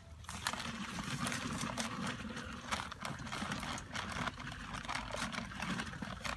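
A paper sack of Portland cement emptying into a tub of water: powder pouring with the paper sack crackling and rustling, starting just after the beginning.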